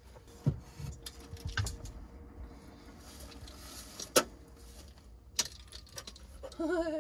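Scattered light clicks and clinks of small hard items being handled at a van's electrical board, over a faint steady hum. A drawn-out, wavering call begins just before the end.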